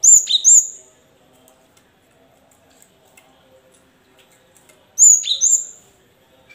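Cinereous tit calling: two bursts of sharp, high, downward-sweeping notes, each a quick pair, the second burst about five seconds after the first.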